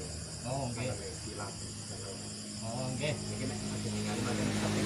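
Crickets chirping steadily, with a motorcycle engine idling low underneath.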